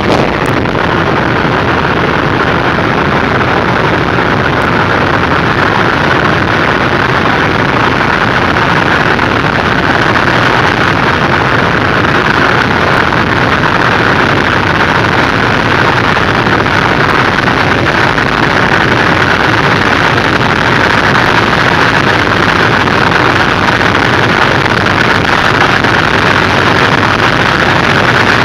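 BMW E32 7 Series car under acceleration: a steady, dense drone of engine and road noise that grows slightly louder and brighter over the stretch.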